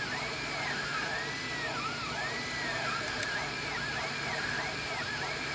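Anycubic Kossel delta 3D printer's stepper motors whining as the nozzle travels in near-circular moves around a cylindrical part. The whine repeatedly rises and falls in pitch, one to two sweeps a second, over a steady low hum.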